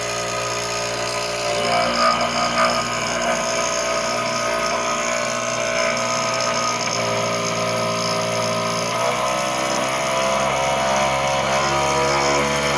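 Arduino-controlled CNC machine running while cutting plastic: a steady motor whine made of several tones, its pitch shifting about seven seconds in and again about nine seconds in.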